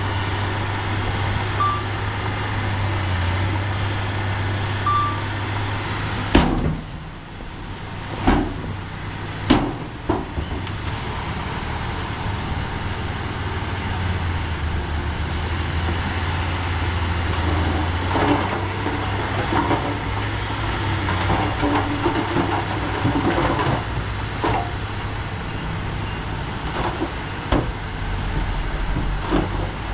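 Heavy diesel earthmoving machinery running steadily, a reversing alarm beeping three times in the first five seconds, then several loud metallic clanks, the loudest three in a row about six to ten seconds in.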